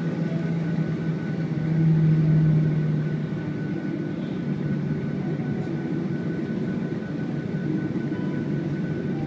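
Jet airliner's engines heard from inside the passenger cabin while taxiing: a steady low hum with a thin high whine over it. The hum swells louder about two seconds in and eases back a second later.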